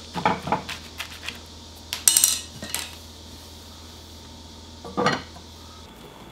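Kitchen pot being handled: a wooden spoon knocks a few times against the pot and its contents, there is a sharp ringing clink about two seconds in, and a glass lid is set down on the pot about five seconds in.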